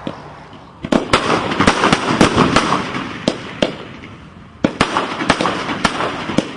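Fireworks going off: a run of sharp bangs with crackling between them, then a denser volley of bangs starting about two-thirds of the way through.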